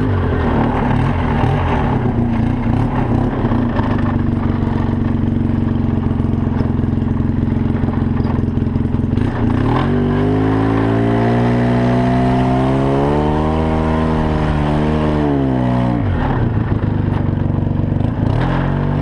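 ATV (four-wheeler) engine running under way. The pitch holds level for several seconds, rises as the engine revs up from about ten seconds in, and drops back around sixteen seconds in.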